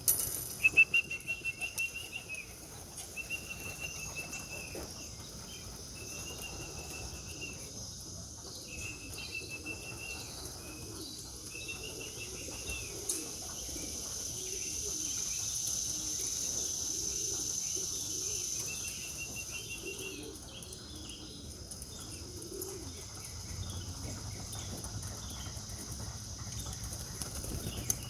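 Young racing pigeons' wings flapping as they fly around the loft, loudest in a burst of sharp wing claps in the first two seconds. A small bird chirps repeatedly in short phrases, and a steady high buzz swells up and fades away midway.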